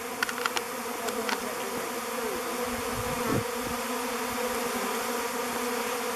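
Honey bee swarm buzzing: a steady, dense hum with a few light clicks about half a second and a second in, and the hum briefly bending in pitch a couple of times.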